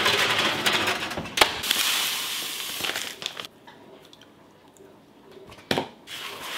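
Kitchen food-prep handling noise: a crackling, rustling hiss for about three and a half seconds with a sharp knock partway through, then a quiet stretch, and another sharp knock near the end.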